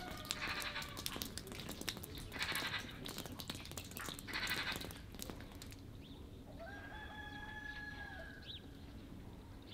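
A rooster crows once, a single long call of about two seconds, some two-thirds of the way through. Before it, water drips and ticks, with three short bursts of bird chatter.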